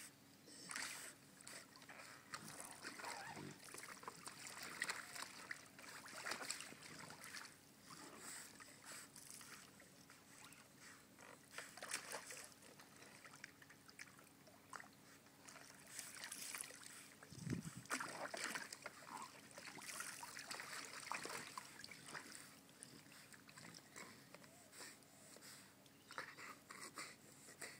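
Faint, irregular splashing and sloshing of water as a chow chow moves about in it, with a louder splash a little past halfway. A weak steady hum runs underneath.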